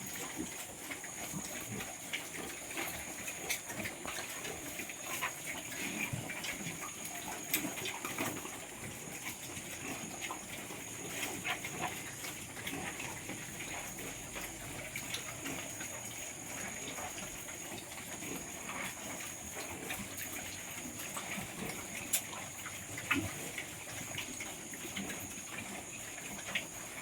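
Pigs, likely piglets on pre-starter feed, eating and moving about in their pen: an irregular run of small clicks and soft animal sounds over steady background noise.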